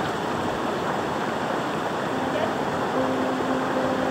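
River water running over rocks and through shallows, a steady even rush. About two seconds in, a faint steady low tone joins it.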